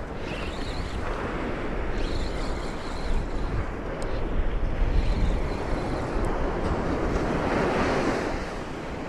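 Ocean surf breaking and washing up the beach, with wind buffeting the microphone in a low rumble; a wave swells and breaks a little before the end.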